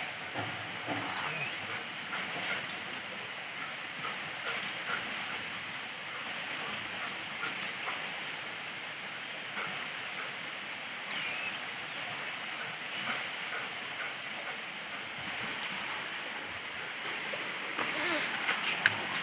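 A dog panting steadily in its wire cage, a continuous breathy hiss with faint scattered ticks.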